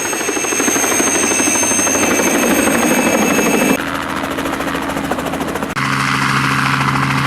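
Helicopter running, its engine and rotor noise steady and loud. The sound changes abruptly about halfway through and again near the end.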